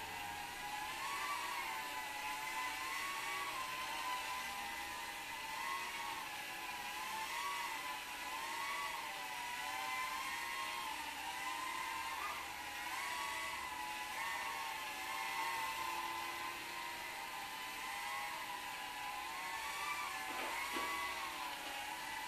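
Eachine Fatbee FB90 micro quadcopter in flight: a steady, high whine from its small motors and propellers, its pitch wavering up and down as the throttle changes.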